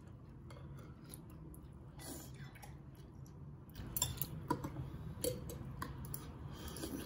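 Scattered light clicks and taps of kitchen utensils against dishes, growing busier and louder about halfway through, over a low steady hum.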